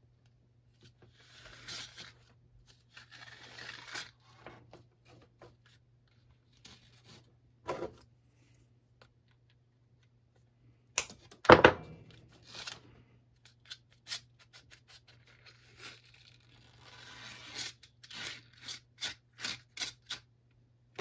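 Scrapes and rubbing from a Honda GCV160 mower's plastic recoil starter being worked by hand as its starter rope is pulled out, with one loud sharp snap about halfway through and a quick run of clicks near the end as the pulley is turned.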